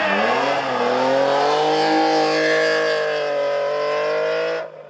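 Race car engine at high revs on a hill-climb stage. The pitch climbs out of a dip at the start, then holds high and steady under full throttle, with a slight rise and fall. The sound cuts off abruptly near the end.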